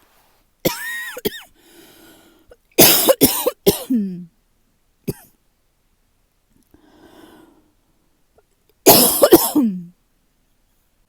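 A person coughing in fits from a tight chest, which the uploader puts down to seasonal allergies rather than illness. A short squeaky sound about a second in, then a fit of three or four quick coughs about three seconds in and another fit near the end, each trailing off in a falling grunt.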